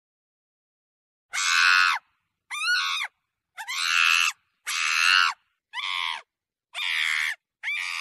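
A monkey screaming: a run of about seven harsh, pitched calls, each shorter than a second and spaced evenly, beginning about a second in.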